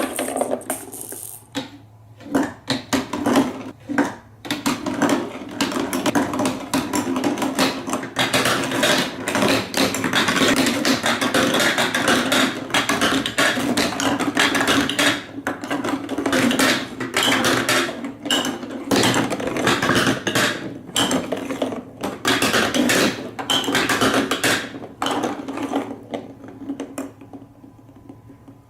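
Marbles rolling and clattering down a block marble run: a steady rolling rumble under a dense stream of clicks and knocks. It thins out and fades near the end.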